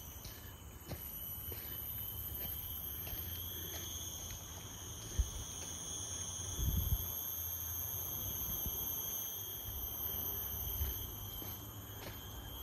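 Insects holding a steady high-pitched drone, one continuous tone with fainter higher lines above it, over a low rumble of distant traffic. A single sharp knock comes about five seconds in and a short low thump near seven seconds.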